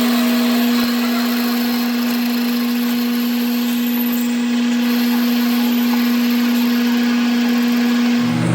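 Machine-tool motor running steadily with a constant, even-pitched hum over a hiss of cutting noise; near the end the hum shifts to a lower pitch.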